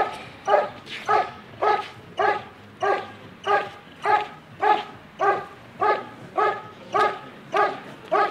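German Shepherd barking steadily and rhythmically at a helper in a blind, just under two barks a second: the IGP hold-and-bark exercise, in which the dog holds the helper in place by barking without biting.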